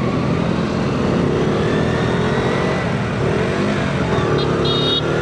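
KTM RC single-cylinder motorcycle engine running under way in city traffic, its pitch rising and falling with the throttle over a steady road rumble. Brief high-pitched beeps sound near the end.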